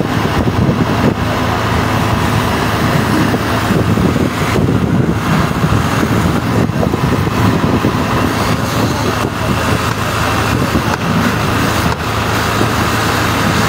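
A fire truck engine running steadily to drive its water pump: a constant low hum with a dense rush of noise over it.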